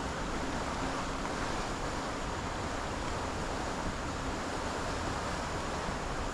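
Steady rush of turbulent white water churning where a municipal water-return outfall pours into the river, heard close up from a kayak sitting in the foam.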